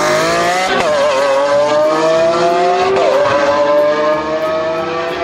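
A sports-car engine revving: its pitch climbs steadily, dips briefly about a second in and again near three seconds, then keeps rising slowly.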